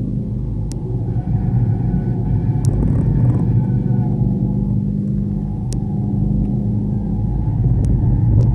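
Car engine running hard at speed on a race track, with steady rumble from tyres and road. A few brief sharp clicks are heard over it.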